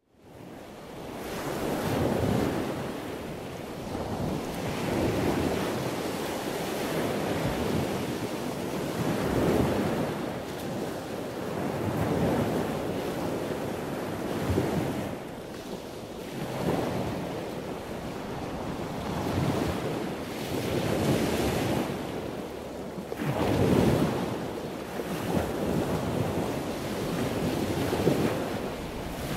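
Wind rushing over the microphone of a camera moving along at riding speed. It fades in at the start, then swells and eases every few seconds in gusts.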